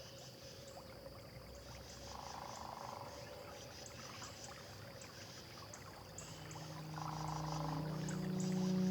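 Outdoor wetland ambience: soft water lapping and splashing under scattered high chirping calls, with two short trilling calls. A low, sustained music drone swells in over the last few seconds.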